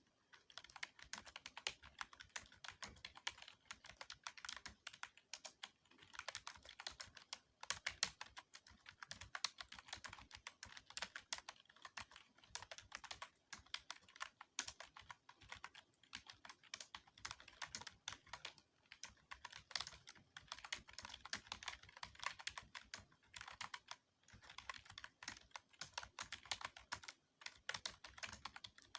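Rapid typing on a computer keyboard: a fast, irregular run of key clicks with a few short pauses, as during a timed typing test.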